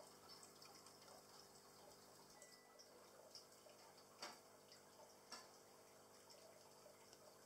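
Near silence, with faint scattered small ticks and water sounds from a small plastic case of water, and two sharper clicks about four and five seconds in.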